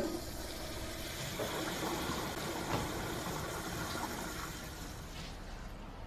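Toilet flushing: a steady rush of water that dies away about five to six seconds in.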